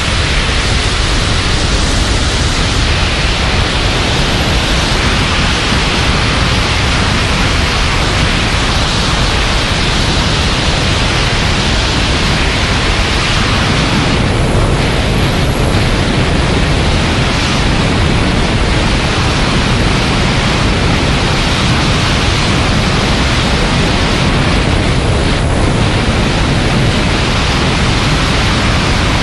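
Loud, steady rush of wind hitting the microphone in high-speed flight.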